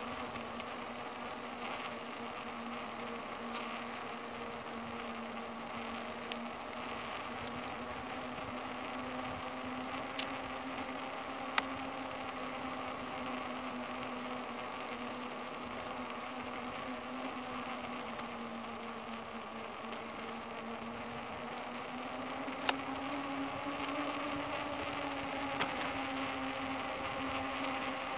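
Bicycle rolling along a paved trail: a steady whirring hum whose pitch rises a little a little after twenty seconds, with a few sharp clicks.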